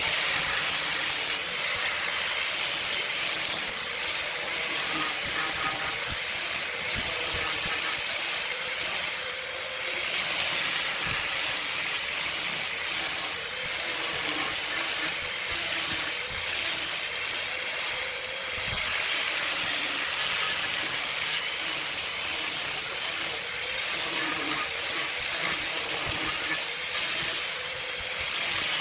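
Wood lathe spinning a burl log while a tool works the turning wood: a steady, loud hiss with a faint repeating pulse underneath.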